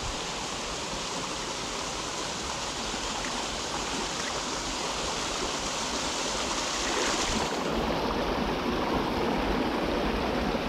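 Mountain stream running over rocks and small cascades: a steady rush of water that grows a little louder about two-thirds of the way through.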